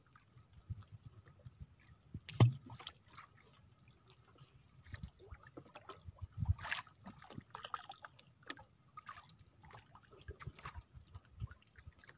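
Water lapping, dripping and sloshing around a small outrigger fishing boat, with scattered small knocks and one sharp knock about two and a half seconds in.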